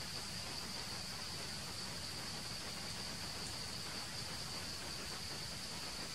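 Steady high-pitched insect chorus, buzzing without a break over a faint even hiss.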